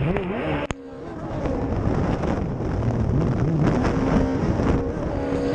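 Racing jet ski engine running at speed, its pitch rising and falling repeatedly as the throttle works, with wind buffeting the microphone and water spray. A sharp click and a sudden drop in loudness come a little under a second in, after which the engine builds back up.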